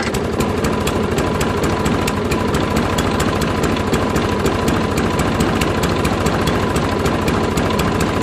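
Briggs & Stratton 6.75 hp lawn mower engine running steadily but slowly, as though the choke is still on. The owner puts this down to old varnished gas holding the automatic choke flap stuck at full choke, making the mixture too rich.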